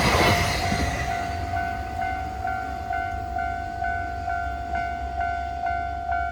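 Level-crossing warning bell ringing in a steady "kan-kan" of about two strikes a second, while the noise of a passing train dies away over the first second. The bell cuts off suddenly at the end.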